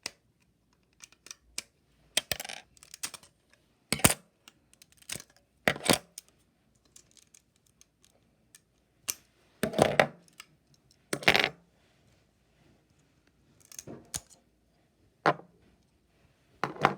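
Irregular sharp clicks and knocks of small hard objects being handled, about a dozen spread out with quiet gaps between, the loudest about four, ten and eleven seconds in.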